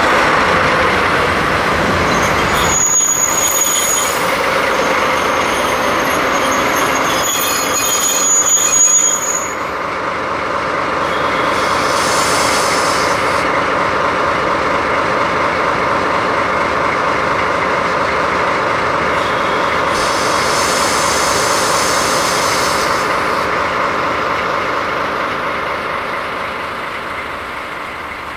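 A JNR Class DD51 diesel-hydraulic locomotive's engines run steadily as it rolls slowly past at close range, hauling flat wagons loaded with rails. A thin high wheel squeal sounds from a few seconds in until about nine seconds, and the engine sound fades a little near the end as the locomotive moves away.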